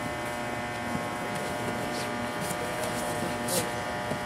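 A steady electrical buzz with many even overtones, with a few brief rustling bursts, the loudest about three and a half seconds in.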